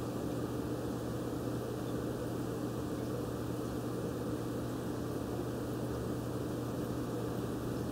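Aquarium filter running with a steady hum.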